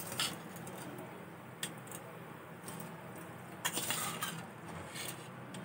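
Water boiling steadily in an aluminium pressure cooker pan, with a few light knocks and a short noisy rush about four seconds in as washed rice is tipped into the boiling water.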